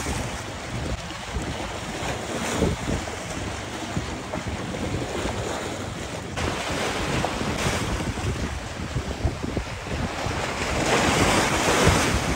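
Strong wind buffeting the microphone over a steady rushing wash of sea noise, swelling louder near the end.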